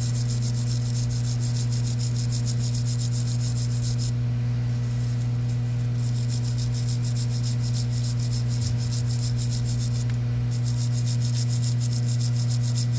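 Rotary tool (Dremel) running steadily with a wire brush scrubbing rust and gunk off small needle nose pliers, a fast scratching over the motor's hum. The scratching lets up for a couple of seconds about four seconds in and again briefly around ten seconds, while the motor keeps running.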